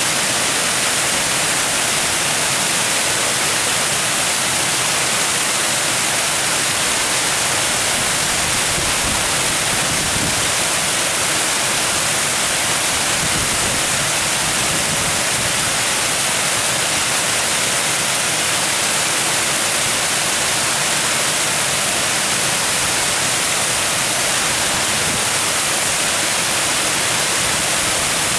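White water pouring down a stepped cascade, a steady rushing hiss that does not change.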